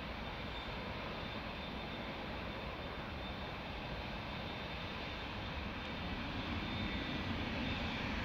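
Jet airliner engines at takeoff power, a steady rushing noise that grows louder about six seconds in.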